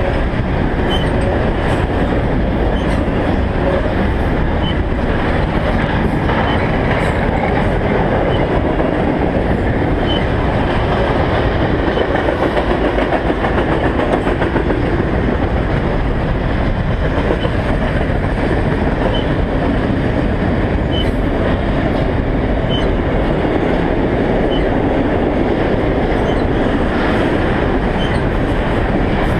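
Freight train cars rolling past: a steady, loud rumble and rattle of steel wheels on the rails.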